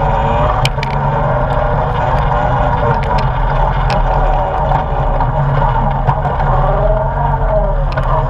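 ATV engine running under throttle, its pitch rising and falling as the rider works the throttle over a rough, rocky dirt trail, with scattered sharp clicks.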